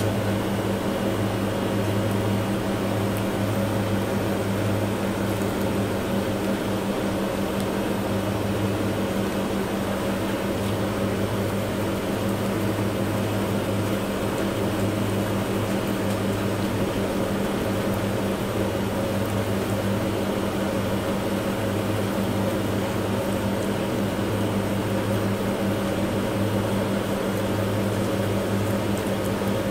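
Steady low machine hum, with a faint whirring noise above it.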